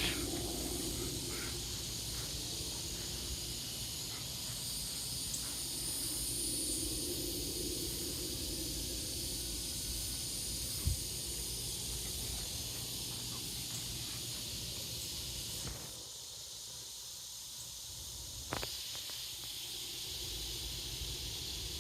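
Steady high-pitched chorus of insects in the summer evening air, over a faint low rumble, with a couple of short knocks.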